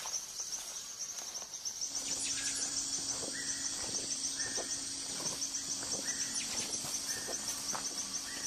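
Tropical rainforest insects trilling steadily, with more joining about two seconds in, and a short repeated call about once a second from then on.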